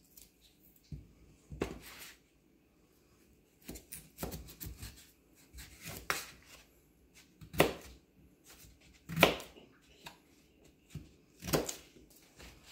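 Paring knife cutting peeled raw potatoes into large chunks by hand: a series of separate crisp cuts, one every second or two, as the pieces drop onto the plate.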